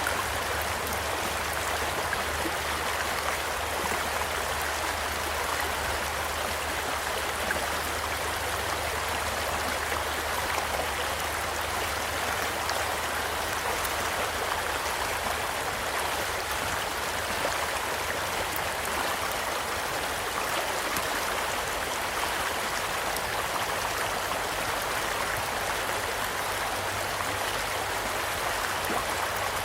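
Steady rushing and babbling of a stream, with faint, occasional crackles and pops from a wood campfire scattered through it.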